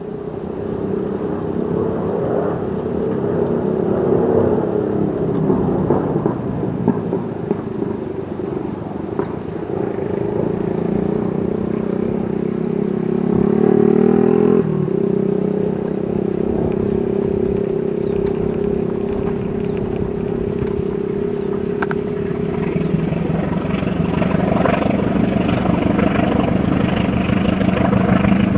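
CC 203 diesel-electric locomotive running under load as it hauls a passenger train past, a steady droning engine note. The note changes abruptly about halfway through.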